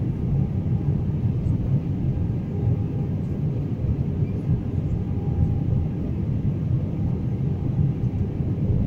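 Steady low rumble of an airliner in flight, heard from inside the cabin: engine and airflow noise with no change in level, and a faint steady hum above it.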